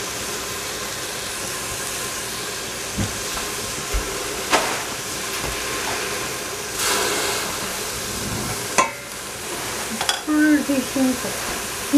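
A knife cutting broccoli florets off the stalk, with a few light knocks as pieces drop into a stainless steel pot, over a steady hiss.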